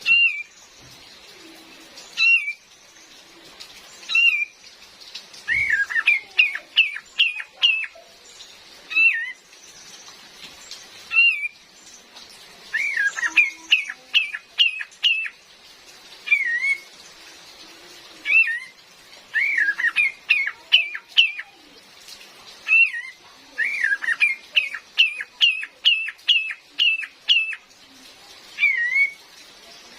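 Female kapas tembak bird calling: short whistled notes that rise and fall, alternating with quick runs of four to eight notes, repeated every second or two. Steady rain hiss underneath.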